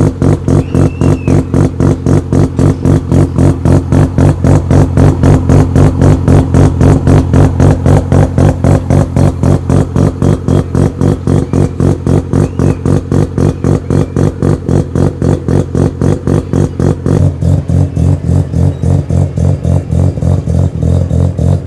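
Mazda RX-7 FD3S's turbocharged 13B two-rotor rotary engine idling loudly with an even, rapid pulsing lope.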